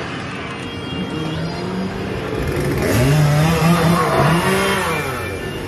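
Chainsaw engine revving, its pitch rising and falling again and again, loudest around the middle.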